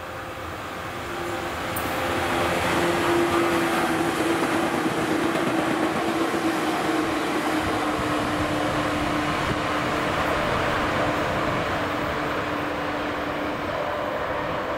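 Four-car JNR 115 series electric multiple unit passing by: a steady rumble of wheels on rails with a humming tone that sinks slightly in pitch, building over the first two seconds and easing a little near the end as the train goes away.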